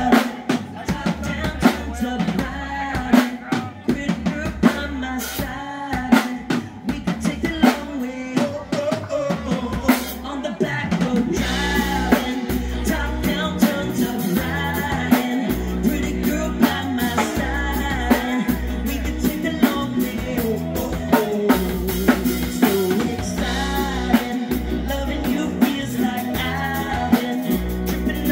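Live band playing: electric guitar, bass, keyboard and drum kit. For the first ten seconds or so the music is sparse, with sharp drum hits and rimshots standing out. From about eleven seconds in the full band plays on steadily.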